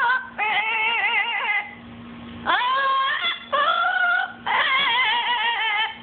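Amazon parrot singing in long drawn-out notes with a wobbling vibrato, four or so phrases with short breaks between them, in imitation of a human song.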